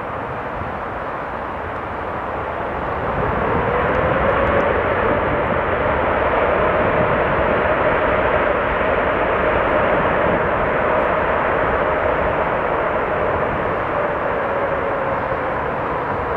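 Boeing 747-8 jet engines (GEnx-2B) rumbling on the landing rollout. The noise swells a few seconds in and stays loud, with a whine that rises and then eases slightly toward the end.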